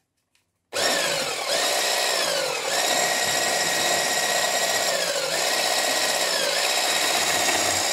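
Electric stick blender with a wire whisk attachment switched on a little under a second in, whisking thick cake batter. Its motor whine drops in pitch and picks back up several times as it works.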